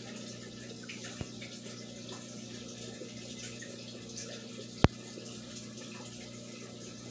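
Steady trickle of circulating aquarium water with a low, even hum, broken by a faint click about a second in and a single sharp click near the five-second mark.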